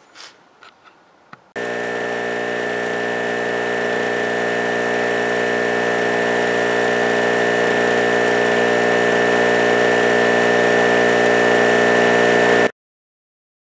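Harbor Freight Storm Cat 700/900-watt generator's 63cc two-stroke engine running at a steady speed, with a high whine over the engine note. It comes in suddenly about a second and a half in and cuts off suddenly near the end.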